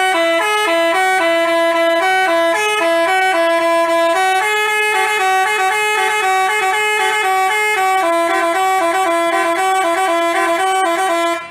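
Basuri telolet multi-tone bus horn playing a fast melody of quickly alternating notes, then cutting off near the end.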